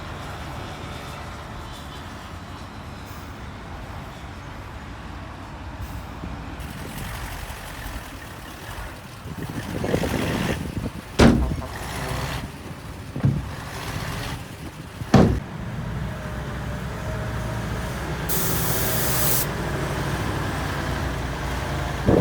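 Heavy earthmoving machine's diesel engine running steadily, with three loud clanks around the middle and a short, one-second burst of hiss near the end.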